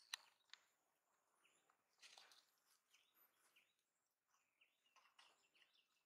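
Near silence: faint outdoor background with a few soft, high, short chirps and a sharp click just after the start.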